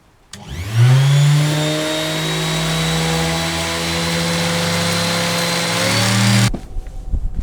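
Electric power tool, standing in for a belt sander, switched on about half a second in: its motor spins up with a quick rising whine, runs steadily for about six seconds, then cuts off suddenly.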